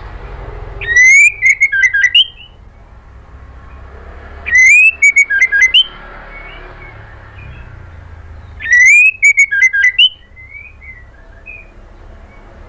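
White-rumped shama (murai batu) calling: the same loud phrase three times, each opening with a rising whistle and breaking into a quick run of sharp notes, with soft scattered chirps between.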